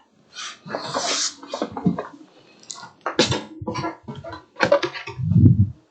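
Boxed PC case being handled: rustling and scraping, a series of clicks and knocks, and a low thump near the end.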